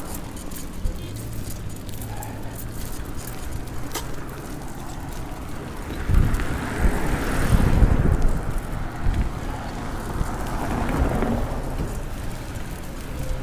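Wind rumbling and crackling on a handheld phone's microphone while cycling along a road. A car goes by around the middle, which is the loudest part.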